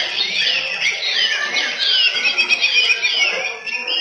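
Several white-rumped shamas (murai batu) singing at once in competition, a dense tangle of rapid, repeated arching whistled notes. The song dips briefly near the end.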